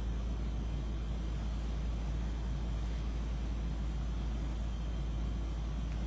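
Steady low rumble and hiss of room noise, with no distinct sounds.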